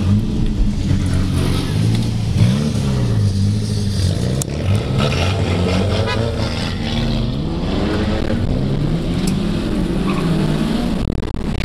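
Nissan 180SX's turbocharged four-cylinder engine heard from inside the cabin, revving up and dropping back repeatedly as the car accelerates through the gears.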